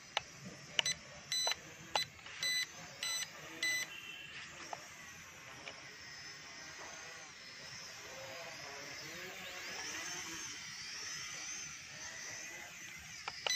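About six short electronic beeps, one every half second or so, then the small electric motors of a toy camera quadcopter whining as it flies, the pitch wavering up and down as the throttle changes.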